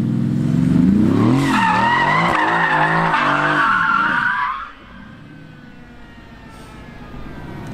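Mercedes-AMG GT drifting: the rear tyres squeal in a loud, wavering screech over the revving twin-turbo V8 for about three seconds. Then the sound drops sharply to a faint engine note as the car slides away.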